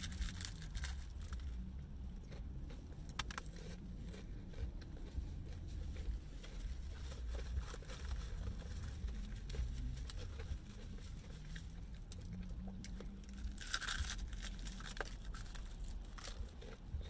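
Close-up eating sounds of crispy fried chicken: crunchy bites, chewing, and crinkling of the paper box and napkin, with the loudest crunches near the start and about fourteen seconds in. A steady low rumble runs underneath.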